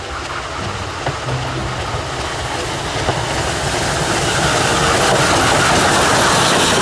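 Steam locomotive hauling passenger coaches as it approaches on the rails, its running and wheel noise growing steadily louder.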